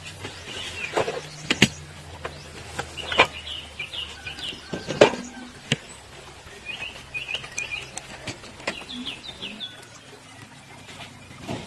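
Two runs of quick, short bird chirps, with scattered sharp knocks and clicks, the loudest about a second and a half and five seconds in.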